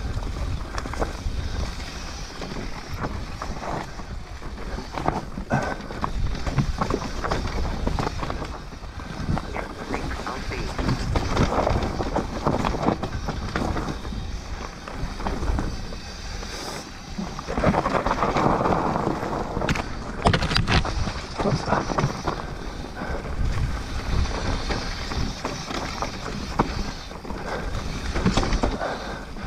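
Mountain bike ridden along a loose dirt trail: tyres crunching and skittering over the ground, the bike's chain and frame rattling and clicking over bumps, with wind buffeting the helmet-camera microphone.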